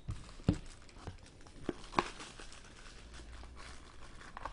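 Hands handling collectible hockey pucks and their packaging on a table: a few light clicks and taps in the first two seconds, then faint handling noise.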